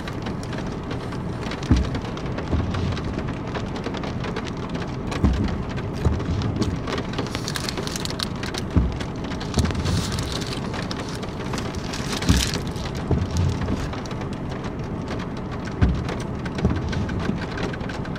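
Rain falling steadily on a car's roof and windows, heard from inside the cabin, with a few scattered louder taps.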